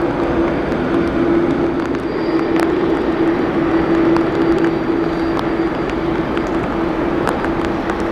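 Jet airliner noise across a rainy airport: a steady engine drone with a constant hum, and scattered sharp ticks through it.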